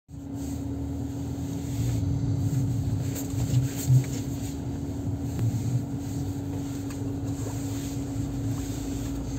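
Wind buffeting the microphone in uneven low gusts, over a steady low hum.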